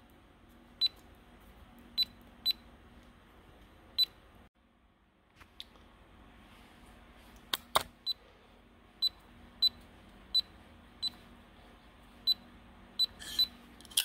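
Securam electronic safe-lock keypad beeping as its keys are pressed: about fifteen short, high beeps, spaced unevenly, with one sharper click a little past the middle.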